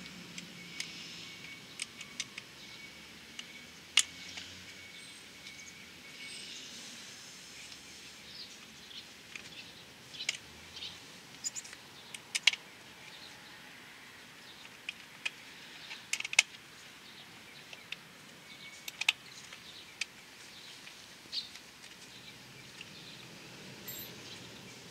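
Scattered sharp clicks and small clinks as gloved hands work on the headlight of a Honda Super Cub 110 Pro to change its halogen bulb. The loudest clicks come about four, twelve and sixteen seconds in.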